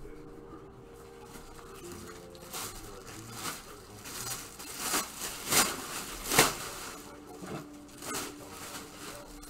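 Card packaging being handled and torn open: a run of crinkling, tearing rustles that grow louder, peaking twice about five and a half and six and a half seconds in.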